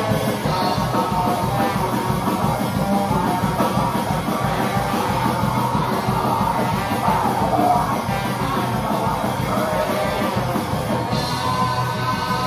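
Live rock band playing: electric guitars and drum kit, with a trombone playing sliding lines over them and a voice shouting near the end.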